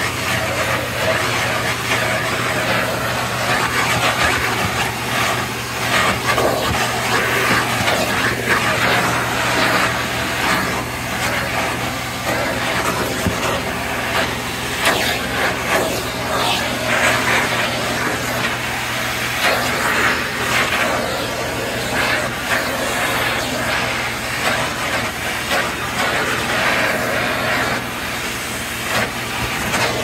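Vacuum cleaner running over dirty carpet: a steady motor hum under a whooshing rush of air whose level keeps rising and falling as the vacuum is worked back and forth.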